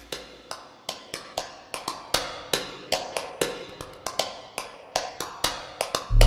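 A run of sharp clicks or taps, about three or four a second, coming closer together near the end. Loud rock music cuts in just before the end.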